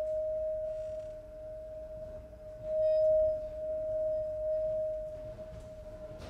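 A single sustained musical tone held at one steady pitch, ringing like a bowed or struck metal bell, swelling louder about halfway through.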